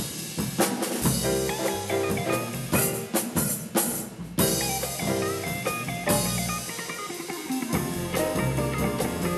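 Live jazz combo playing, with the drum kit's snare and cymbal strokes and an electric guitar's chords to the fore.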